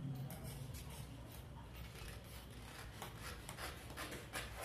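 Scissors cutting along the outline of a large paper sewing pattern: a quiet, irregular run of snips and paper scraping.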